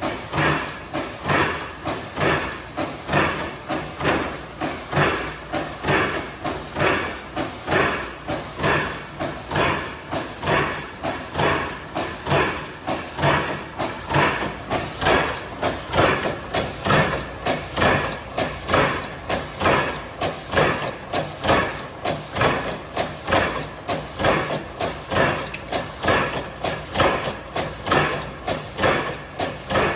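2011 IMA CD180 filling machine running through its cycle: a loud, noisy mechanical rhythm that pulses evenly about one and a half to two times a second.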